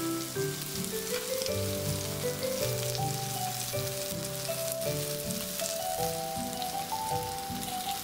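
Pork belly sizzling and crackling on a grill pan, with background music playing a gentle melody of held notes over it.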